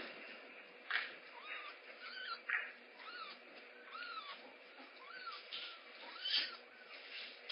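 Kitten mewing over and over in a string of short, high, rising-and-falling cries, one or two a second, with a few knocks in between.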